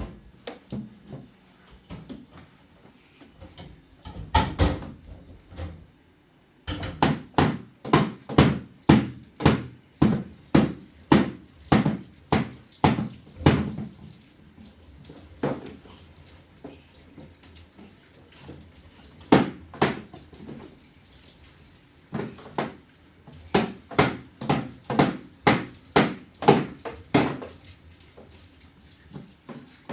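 Repeated knocks or slaps, about two a second, in runs of several seconds with short pauses between.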